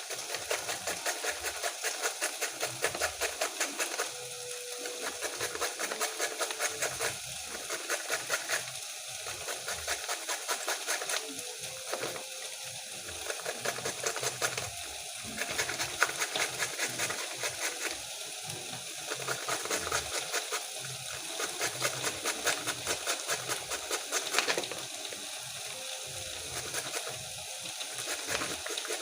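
Carrot being grated by hand on a grater: runs of quick rasping strokes in bursts of a second or two, with short pauses between.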